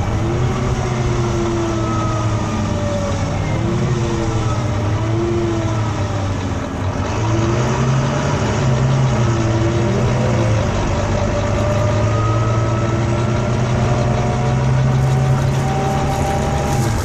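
Volvo B9TL double-decker bus running, its engine a steady low drone, with a strange wailing above it: thin tones that waver and slide up and down, and one that climbs steadily near the end.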